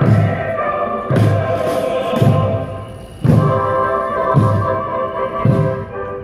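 A marching drum team striking their drums together in a slow, even beat, about one stroke a second, over loud music with long held notes.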